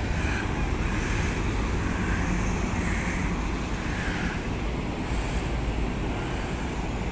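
Outdoor city ambience: a steady low rumble of wind on the microphone over the hum of distant road traffic.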